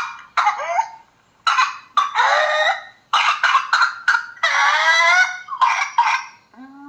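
Whooping cough (pertussis): runs of rapid, hacking coughs, each run ending in a long, high-pitched whooping in-breath, about three times over. The cough-then-whoop pattern is the sign of the paroxysmal second stage of pertussis.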